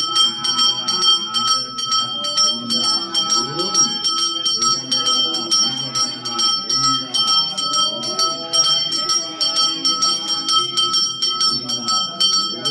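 A brass hand bell (puja ghanta) rung rapidly and continuously, its high ringing tones pulsing with each stroke, during the milk abhishekam of a temple idol. Chanting voices run underneath.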